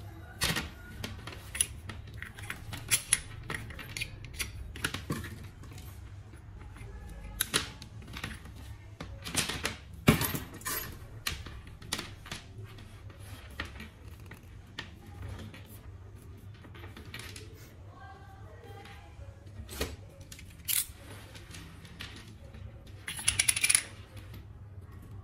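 Coil of black coaxial cable handled on a wooden tabletop: scattered rustles, taps and clicks as it is uncoiled and laid down. Near the end comes a short dense run of sharp scraping clicks as cutters work the cable's end.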